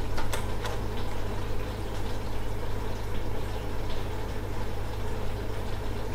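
Water with a spice blend simmering in a stainless steel pan, a steady bubbling crackle over a constant low hum, with a few light clicks in the first second.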